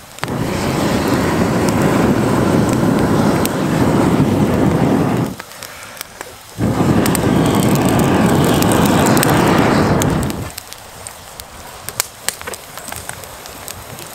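Air blown through a pocket bellows into a campfire's embers: two long rushing blows of about four to five seconds each, with a short break between. After the second blow the fire crackles and pops.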